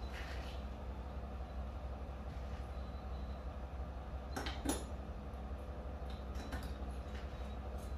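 Pickup truck engine idling steadily, with a sharp metal clank from the dog box door a little past halfway and a lighter knock about two seconds later.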